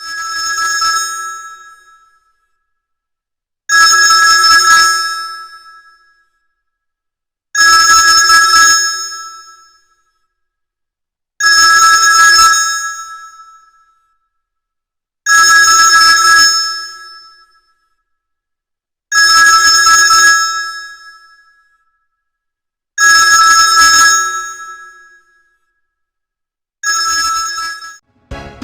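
Sony Ericsson T610 mobile phone playing one of its built-in ringtones: a telephone-style ring of two steady tones sounded together, repeated about every four seconds, each ring fading out over about two seconds. The last ring is cut short near the end.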